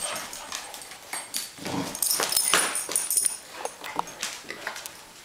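A small dog playing with its toys: claws clicking and scrabbling on a hardwood floor, toy rustles, and a few short dog sounds.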